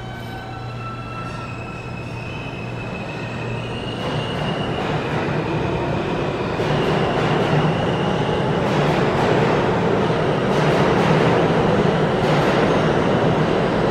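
New York City subway train approaching the station through the tunnel, its rumble growing steadily louder. Thin high tones sound over the rumble until about halfway through.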